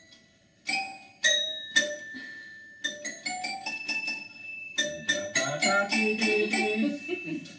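Small toy piano being played: a few single bright, ringing notes about a second apart, then quicker notes from about three seconds in, turning into a busy run of notes near the end.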